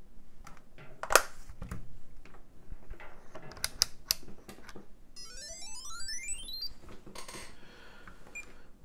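Clicks and knocks of an Agilent U1253B handheld multimeter being set down and switched on, the sharpest knock about a second in. About five seconds in, a rising stepped electronic tone climbs for about a second and a half as the meter powers up.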